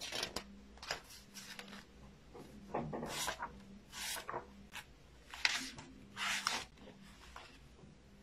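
Paper rustling and rubbing as book pages are handled and turned: a string of short, irregular papery scrapes.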